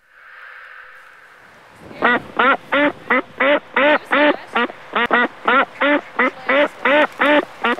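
Ducks quacking: a fast, steady run of loud quacks, about three or four a second, starting about two seconds in after a soft steady hiss.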